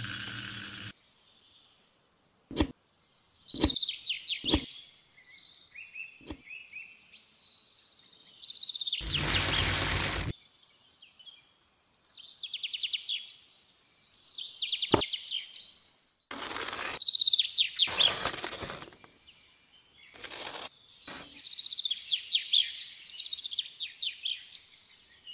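Small birds chirping and trilling throughout. Several rushes of grainy noise from sand and gravel being scooped and poured by hand, the longest about nine seconds in and again around seventeen to nineteen seconds, with a few sharp little clicks between them.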